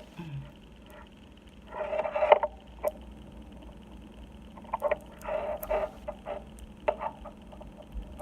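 Hands pressing and rubbing adhesive label tape around a phone cord: short bursts of rustling and rubbing, the longest about two and five seconds in, with a few sharp clicks between.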